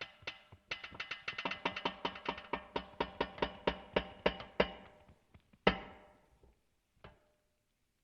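Metal creaking as a run of sharp, ringing metallic ticks, about five a second for some four seconds. One louder clank with a ringing tail comes near six seconds in, and a fainter one a second later.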